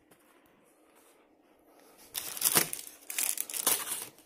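Crinkling, rustling noise in two loud bursts, starting about halfway in after a quiet stretch.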